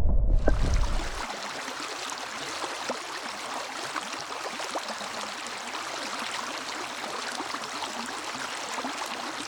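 Small stream running over rocks: a steady, even rush of water flecked with small splashes and trickles. Low wind buffeting on the microphone dies away about a second in.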